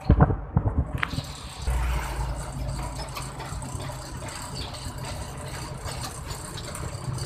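A few sharp knocks in the first second, then a vehicle driving on a highway: steady engine hum and road noise with rattling. A deeper rumble swells briefly about two seconds in.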